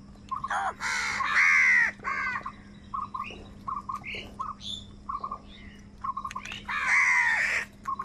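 A flock of house crows cawing: two loud, harsh bouts, about a second in and near the end, with short repeated calls in between.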